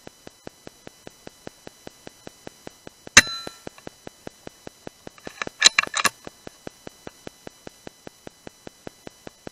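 A BSA R10 Mk2 .177 PCP air rifle fires once about three seconds in: a sharp crack with a brief metallic ring. About two and a half seconds later comes a quick cluster of metallic clicks, typical of the bolt being worked to load the next pellet. A faint, steady ticking, about five a second, runs underneath.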